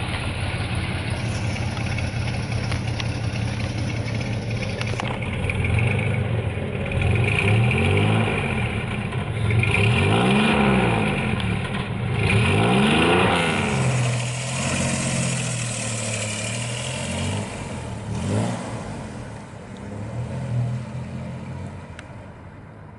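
1969 GMC 1500 pickup's cast-iron 305 cubic-inch six-cylinder engine idling steadily, then blipped up and back down three times. It settles back to idle and fades as the truck pulls away.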